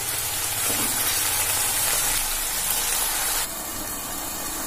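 Chicken masala with a little added water sizzling and hissing in a nonstick frying pan. About three and a half seconds in it drops to a quieter, steadier hiss as the pan simmers covered under its glass lid.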